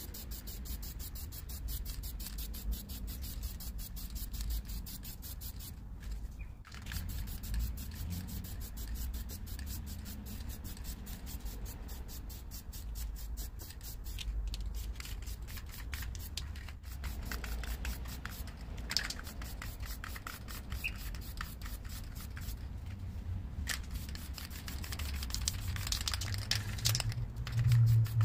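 Aerosol spray paint can hissing in long bursts while the first coat of paint goes onto a car's side, with short breaks about a quarter, halfway and four-fifths of the way through. A steady low rumble runs underneath.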